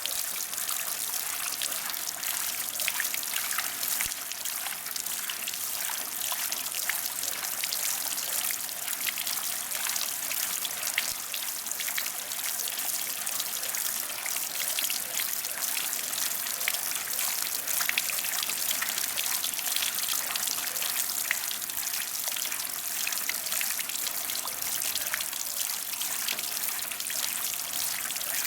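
Water from splash pad sprays and jets falling and splashing onto the ground: a steady hiss of falling water with many small scattered splashes.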